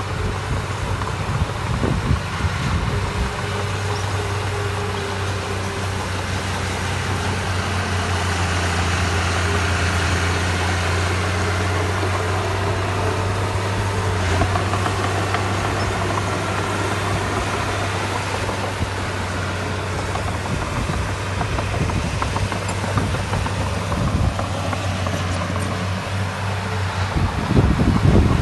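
Heavy diesel engine of earthmoving machinery running steadily with a deep, even hum, with a couple of louder low thumps about two seconds in and near the end.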